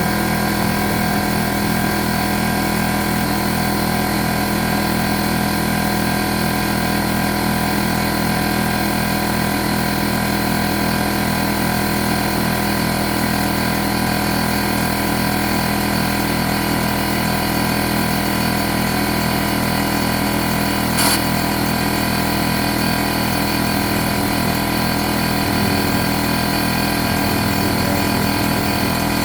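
Air compressor running steadily, with one short sharp click about two-thirds of the way through.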